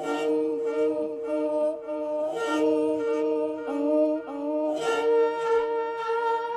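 Wordless humming: one note held steady while a second, lower line moves stepwise between pitches beneath it.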